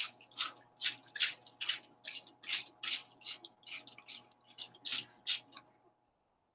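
Plastic trigger spray bottle squirting water onto soil, pumped over and over at about two or three squirts a second, stopping shortly before the end.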